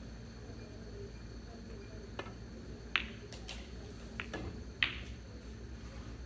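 An English billiards shot: the cue tip taps the yellow cue ball, then the ivory-hard resin balls click sharply against each other as they collide. There is a faint tap about two seconds in, then four sharp clicks over the next two seconds, the loudest about three and five seconds in.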